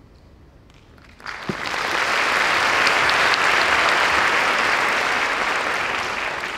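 Concert hall audience applauding. The clapping breaks out suddenly about a second in, holds steady, and begins to die away near the end.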